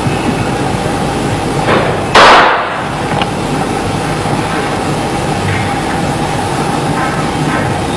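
A single loud sharp impact about two seconds in, fading over half a second, with a softer one just before it, over a steady background noise.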